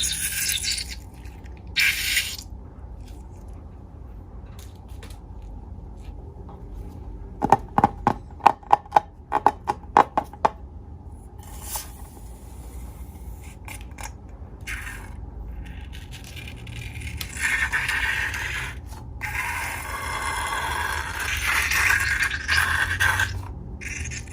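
Scraping and rubbing of balloons and slime being handled, with a quick run of about ten sharp clicks about a third of the way through and a longer stretch of scraping near the end.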